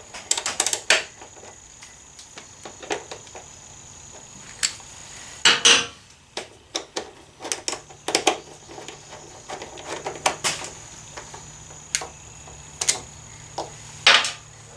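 Metal tools clinking and tapping against motorcycle parts: a dozen or so irregular light clicks and knocks, with a louder clatter about five and a half seconds in, as a 10 mm socket is used to unbolt the rear brake fluid reservoir.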